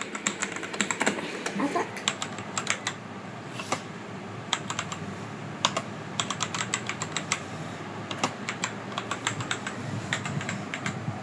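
Typing on a full-size Ant Esports MK4100 mechanical keyboard with Outemu Brown tactile switches: a quick, irregular run of keystroke clicks, some strokes louder than others.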